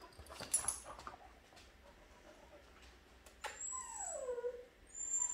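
A young dog gives one falling whine about three and a half seconds in. About half a second in there are a few sharp clicks and scuffles as the dog jumps up.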